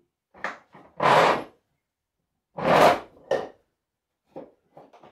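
A wooden block being handled and set into a wooden bench vise. There are two loud wood-on-wood knocks with a short scrape, about a second and three seconds in, then a few light taps near the end.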